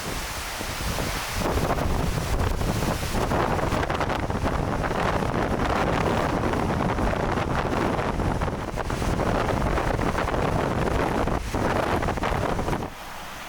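Blizzard wind of around 60 mph blowing hard across the microphone, a steady rough rush strongest in the low end. It drops off sharply about half a second before the end.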